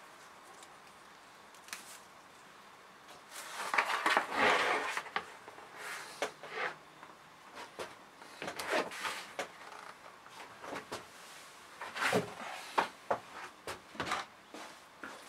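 Rustling and scraping as a potted plant and its plastic pot are handled over a plastic potting tray, with scattered knocks and clicks from the pots; the loudest scraping rustle comes about four seconds in.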